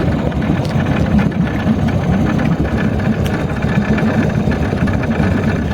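Small 3.5 hp Nissan outboard motor running steadily.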